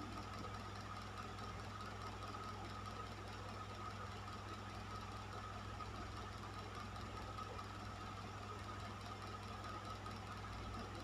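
Electric fan running steadily: an even rush of air over a low motor hum, with a faint constant whine.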